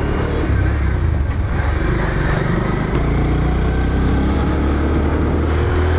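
Motorcycle engine running steadily under the rider as the bike picks up speed, heard from a helmet chin-mounted camera with wind rush over the microphone.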